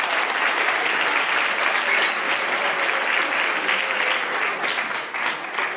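Audience applauding, the clapping thinning to scattered claps near the end.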